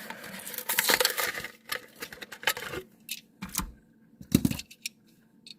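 Hot Wheels blister pack being opened by hand: crinkling and tearing of the plastic bubble and card for about three seconds, then a scatter of sharp plastic clicks and knocks as the package and die-cast car are handled.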